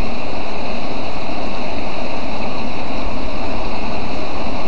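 Heavy rain pouring steadily, a loud even hiss with no break.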